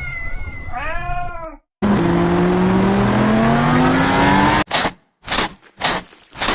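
A cat meows a few times. After a short break comes a steady engine-like sound rising slowly in pitch for about three seconds, then it cuts off into a series of short sharp bursts, about two a second.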